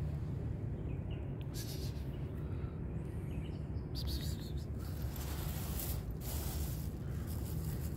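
Outdoor park ambience: a steady low rumble with a few brief spells of high hiss and faint bird chirps.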